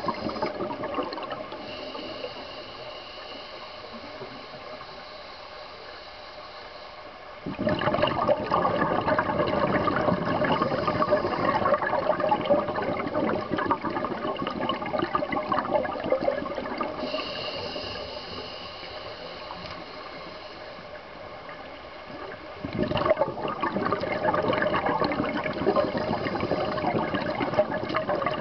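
Scuba breathing heard underwater. Two long spells of loud bubbling from a regulator's exhaled bubbles, starting about 7 s in and again about 23 s in, with quieter stretches between that hold a faint steady high tone.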